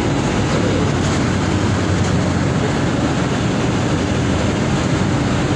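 Mercedes-Benz OF 1722M bus's diesel engine running steadily, a loud, even low drone.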